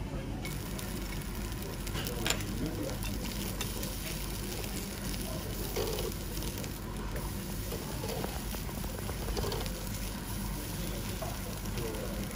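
A thin slice of wagyu beef sizzling on a wire-mesh grill over hot charcoal: a steady frying hiss with small scattered crackles and pops.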